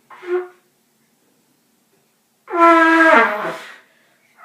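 A brass horn blown by a beginner: a short blat about a quarter second in, then a louder held note about two and a half seconds in that wavers and sags in pitch before dying out.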